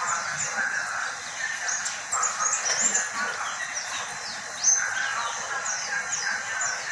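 Pet white-eye (pleci) singing: a steady run of quick, high, down-slurred chirps.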